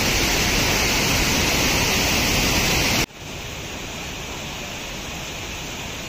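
Steady rushing roar of Lodh Falls, a high waterfall. About three seconds in it drops suddenly to a quieter, steady rush.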